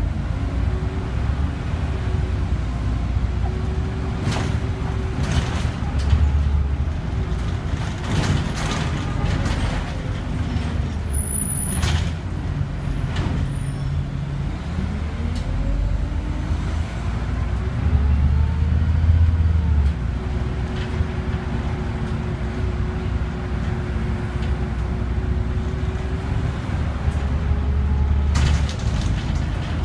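Scania OmniCity city bus heard from inside while under way: the engine's note rises and falls with its speed over a steady low road rumble, with several short hisses from the air brakes.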